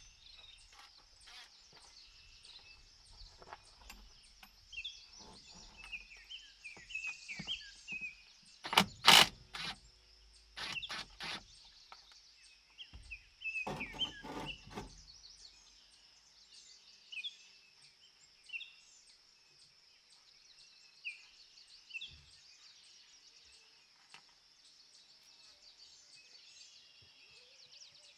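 Small birds chirping and calling throughout over a steady high hiss, with a few loud knocks and rattles from work on the tractor around the middle, the loudest about a third of the way in.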